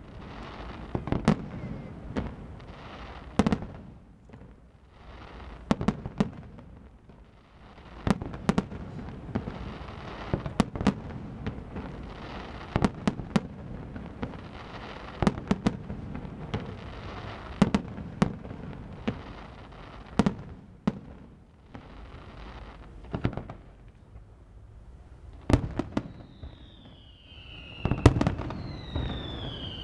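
Fireworks display: one sharp bang after another, often several in quick succession, over a continuous noisy rumble. Near the end, a few whistles fall in pitch.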